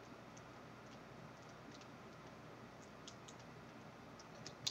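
Faint small clicks and ticks of fingers working a laptop LCD panel's video cable connector back into its socket, with one sharper click near the end.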